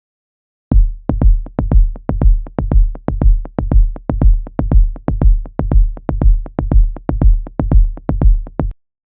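Suspense heartbeat sound effect: a fast, even series of deep, booming thumps in pairs. It starts about three-quarters of a second in and stops shortly before the end.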